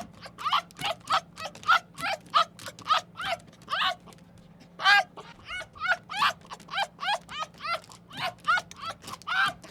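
An animal giving short, high yelping calls in quick succession, about two to three a second, with a brief pause about four seconds in.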